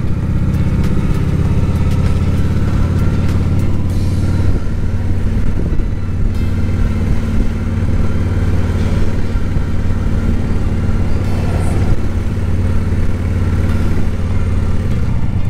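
Motorcycle engine running at a low, steady speed as the bike cruises slowly along a street; the engine note shifts slightly about four and a half seconds in.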